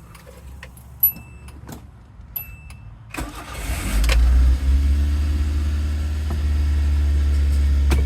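Keys jingle and click at the ignition. About three seconds in, the 1989 Nissan Sentra's four-cylinder engine cranks on the starter for about a second, catches, and settles into a steady idle.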